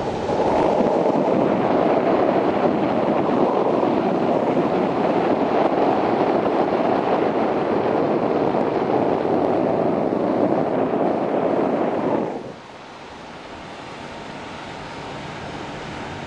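Wind rushing over the microphone high up on a parasail ride, a loud steady rush that suddenly drops away about twelve seconds in, leaving a much quieter steady wind noise.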